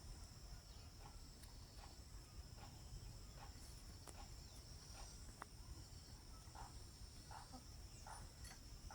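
Faint outdoor ambience: a steady high-pitched insect trill, with short faint bird chirps scattered through it over a low rumble.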